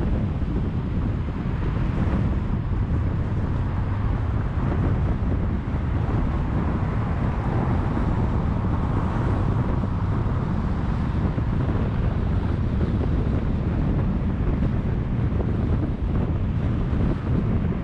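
Wind buffeting the microphone: a steady, dense low rumble with no distinct events.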